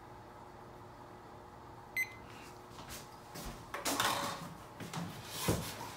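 A short electronic beep about two seconds in as a timer is started, followed by a few seconds of knocks and rustling as someone moves about and settles.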